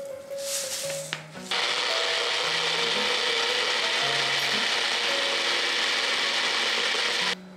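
Bullet-style personal blender motor running at full speed, starting sharply about a second and a half in, holding steady and cutting off near the end. The blender rattles as it shakes across the stone countertop.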